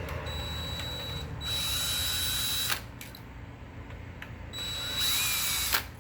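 Cordless drill/driver running in two bursts of a few seconds, a steady high whine that grows louder partway through each burst, as if driving screws into the lock hardware. Each burst ends with a sharp click.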